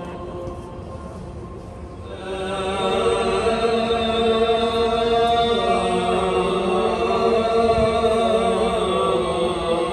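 A single male voice chanting in Arabic over the mosque's loudspeakers, holding long, wavering notes; it swells louder a little over two seconds in.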